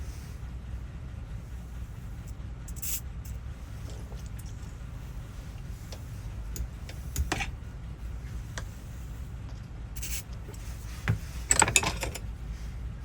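Scattered metallic clicks and rattles from handling a rusty door lock cylinder and key, ending in a quick cluster of sharper clicks, over a steady low rumble.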